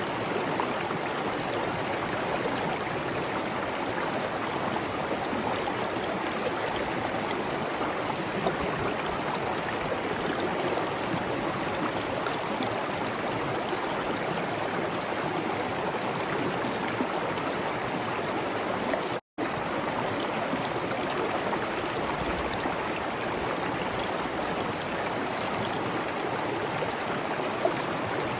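Waterfall: steady rushing water with no let-up, broken once about two-thirds of the way in by a split-second dropout to silence.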